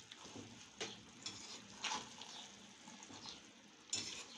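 Faint clicks and scrapes of a metal slotted spoon against a cooking pot as steamed biryani rice is lifted and turned, about four light strokes spread over a few seconds.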